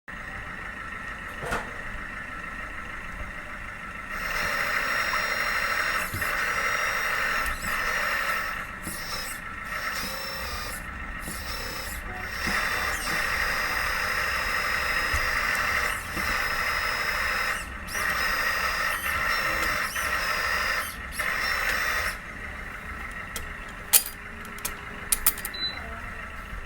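The hydraulic pump of a 1/14-scale LESU BL71 metal RC backhoe loader, whining steadily. It gets louder in stretches of a few seconds with short dips between them, after a quieter hum at the start. A few sharp clicks come near the end.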